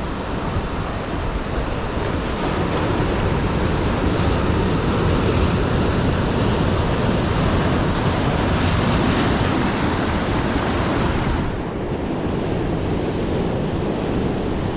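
Surf breaking and washing onto the shore, with wind buffeting the microphone.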